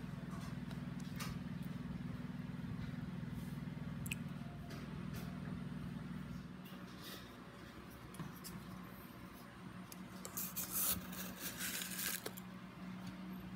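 Steady low hum with a few small clicks and taps, then a couple of seconds of crackly rustling and scraping near the end as salt is handled in a plastic jar.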